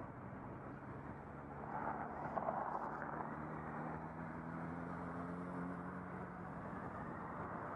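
Motorcycle engine running under wind noise on a helmet-mounted camera's microphone, with a swell of rushing a couple of seconds in and an engine note rising slightly in pitch through the middle.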